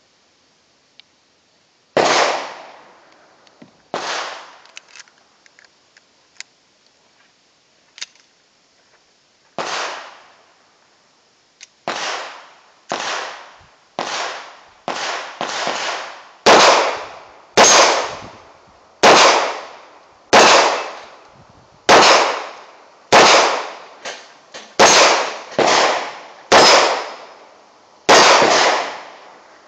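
Llama 1911-pattern 9mm Parabellum pistol firing a string of about twenty shots, each trailing off in echo. The first few come several seconds apart, then from about twelve seconds in they follow at roughly one a second.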